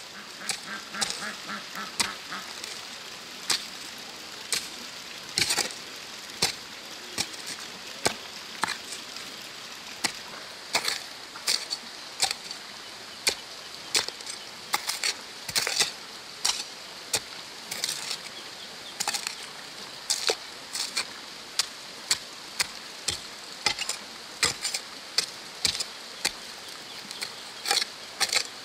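Steel hoe blade chopping into and scraping through dry, stony soil in irregular strokes, often one or two a second, each a sharp thud. A steady high-pitched drone runs underneath.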